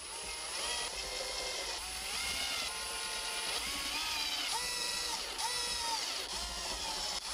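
Cordless drill/driver driving 4 mm screws into a wooden plate. Its motor whine runs steadily, shifting and dipping in pitch several times as the load changes.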